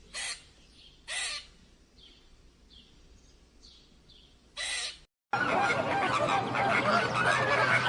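A bird giving three short, harsh calls, a second or several apart, with faint chirps between them. A little past halfway this cuts off and a loud, dense chorus of many birds calling at once begins.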